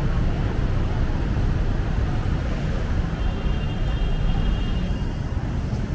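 City street traffic: cars, a van and motorbikes passing close by on wet asphalt, a steady rumble of engines and tyre noise.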